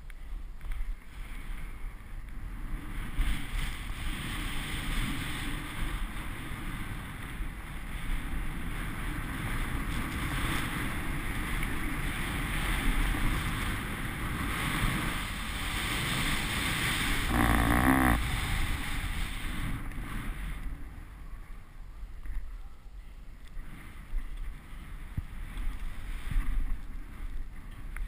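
Skis hissing and sliding over snow during a downhill run, with wind rushing over the microphone. It builds through the middle of the run and eases off in the last few seconds.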